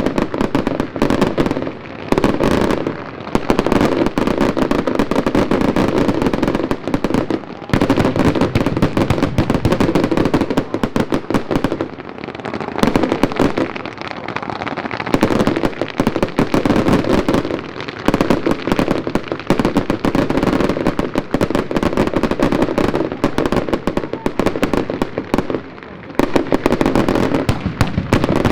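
Dense barrage of fireworks and firecrackers going off at once, a rapid, overlapping stream of bangs and crackling that lets up briefly a few times.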